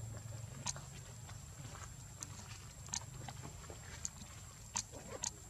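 Outdoor forest ambience: a steady thin high-pitched drone over a low hum, broken by scattered sharp clicks and ticks about once a second, with a few faint short squeaks near the end.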